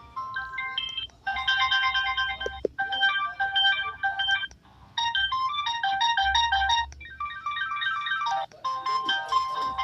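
GT-E1195L-model feature phone's loudspeaker playing electronic ringtone melodies of quick stepping notes, with short breaks where one tune gives way to another.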